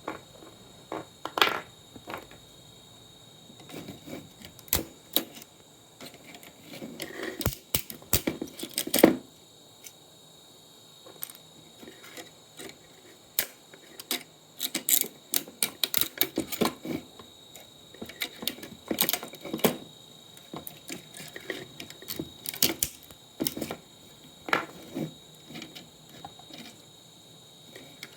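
Irregular clicks and clatter of tools and small hard parts being handled while an old monitor is taken apart, coming in scattered bursts.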